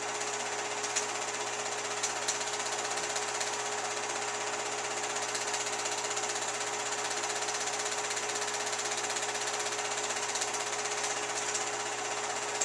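Film projector running steadily: a continuous mechanical noise with a constant hum underneath and a few light ticks.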